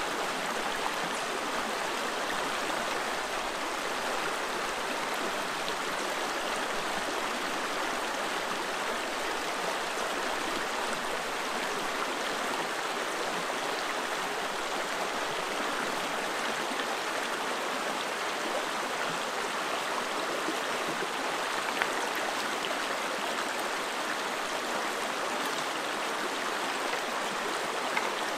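Small rocky stream running steadily over stones in a shallow riffle, a continuous rush of water. Two brief faint clicks come late on.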